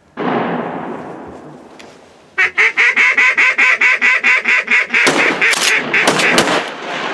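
A sudden loud noise just after the start that fades away over about two seconds, then a fast run of loud duck quacks, about five a second, followed by a few more uneven quacks.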